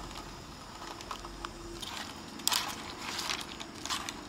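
A pot of kalguksu noodles boiling on a portable gas camping burner, with a faint steady hiss. From about two and a half seconds in, chopsticks stir the noodles, scraping and clicking against the pot.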